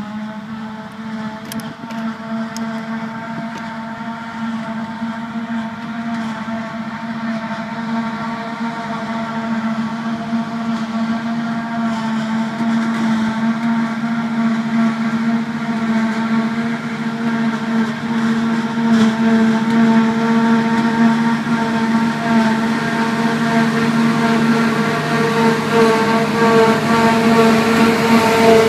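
New Holland FR700 self-propelled forage harvester picking up and chopping a grass swath, with a tractor and trailer running alongside: a steady droning hum with a whine above it, growing louder as the machines draw closer.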